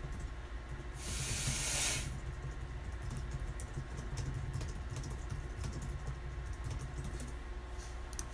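Light, irregular clicking of computer keys over a steady low hum. About a second in there is a loud hiss lasting about a second.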